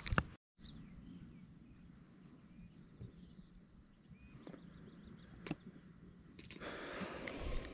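Quiet lakeside ambience: a faint steady hiss with a few small bird chirps and an occasional light click. A swell of rushing noise comes near the end.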